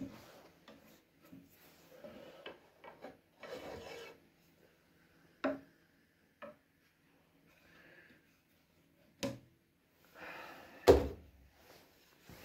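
Wood and tools being handled at a clamped wooden chair: short scraping and rubbing noises, a few sharp clicks, and one loud knock near the end. The drill is not running.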